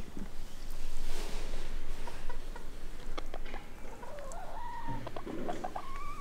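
Crested chicken making a string of drawn-out calls from about four seconds in, the first rising in pitch and the last held longest.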